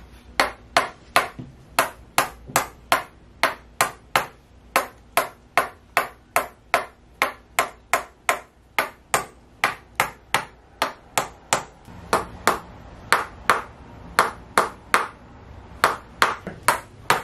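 Tok sen hammer massage: a red tok sen mallet repeatedly striking a tapping stick held against a person's back, giving sharp, even clacks at about three a second in a steady rhythm.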